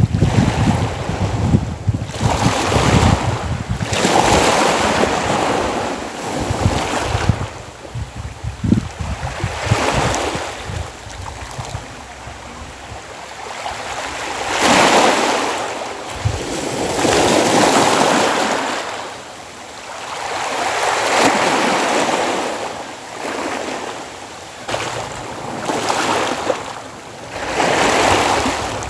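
Small sea waves washing in the shallows, swelling and fading every two to three seconds. Wind rumbles on the microphone over the first several seconds.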